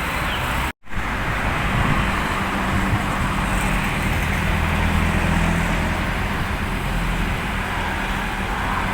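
Refrigerated truck running steadily with a low, even hum. The sound cuts out completely for an instant just under a second in.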